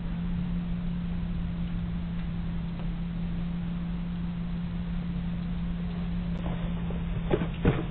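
Steady hiss with a constant low hum, heard through a Ring doorbell camera's microphone, with a few sharp clicks or knocks close together near the end.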